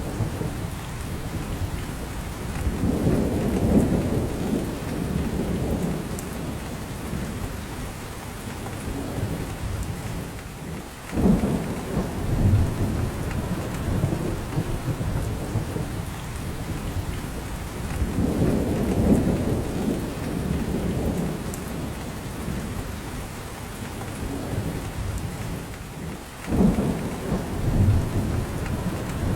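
Steady rain falling in a spruce forest, with drops falling from the branches, under deep low rumbles that swell and fade several times.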